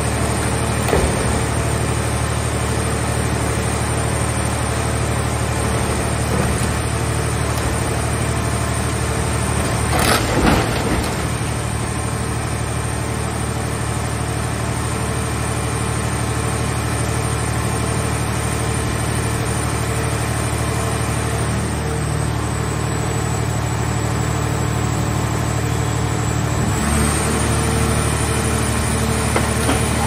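The hydraulic power unit of a scrap car-shell baler runs with a steady hum. About ten seconds in there is a short crunch of metal as the press crushes the car body. Near the end the machine's note changes as the press lid moves.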